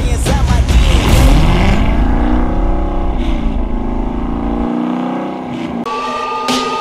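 Performance car engine revving hard under acceleration, its pitch climbing over the first couple of seconds and falling back about three seconds in, as at a gear change.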